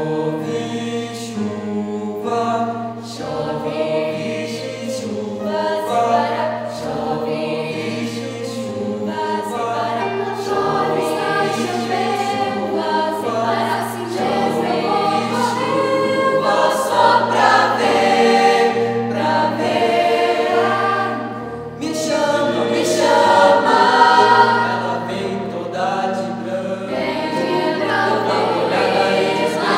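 Mixed youth choir singing a song in several-part harmony, with low bass notes beneath the upper voices; the singing grows louder in the second half.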